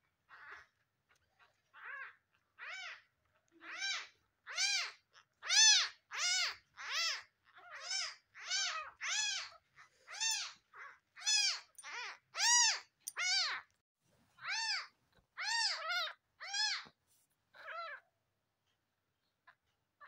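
Newborn kitten mewing over and over: short, high-pitched cries that each rise and fall in pitch, coming about one or two a second and stopping a couple of seconds before the end.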